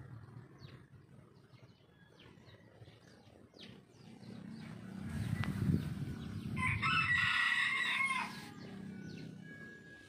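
A rooster crowing once, about seven seconds in, a loud pitched call lasting under two seconds, with faint short bird chirps in the first few seconds.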